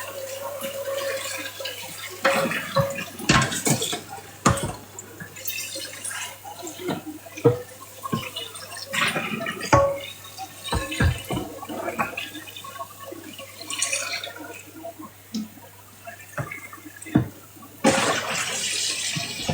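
Water running from a kitchen tap into a sink, broken by many sharp clinks and knocks of dishes and utensils being handled.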